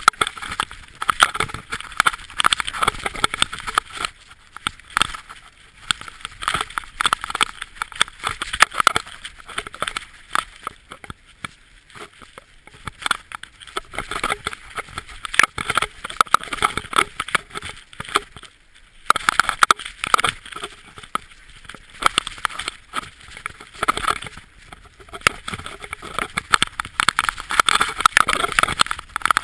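Mountain bike riding fast down a rocky trail: continuous irregular clattering and rattling as the wheels and frame jolt over loose stones.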